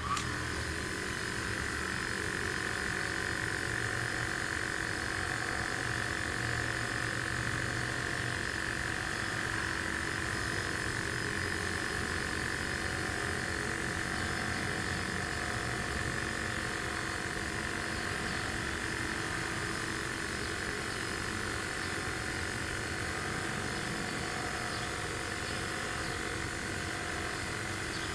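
Rotator motor of a 1984 Thunderbolt 1000ATSC siren running steadily at its 8 RPM setting, a constant even hum and buzz with no change in pitch.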